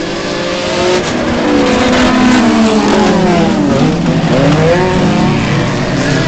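Several scramble race car engines running hard at once on a dirt track, their pitches rising and falling and crossing one another as they rev, louder from about a second in.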